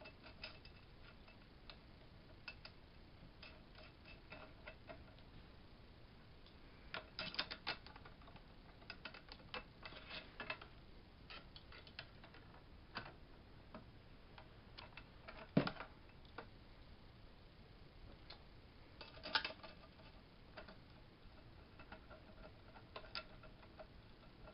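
Scattered light clicks and taps of metal axle hardware being handled, as a locking nut is threaded by hand onto a scooter's front axle against the peg, with one sharper knock about two-thirds of the way through.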